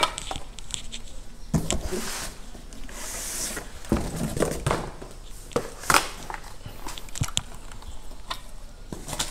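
Handling noise of amplifier boards being lifted out of a cardboard box: cardboard rustling and scraping with scattered knocks and clicks.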